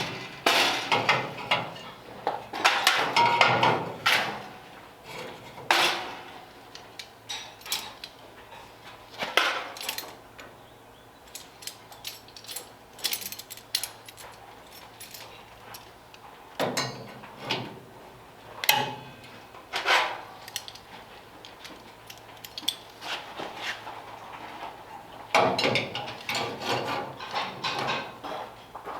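Irregular knocks, clanks and rattles of hand tools and metal parts being handled, some coming in quick clusters of several strikes.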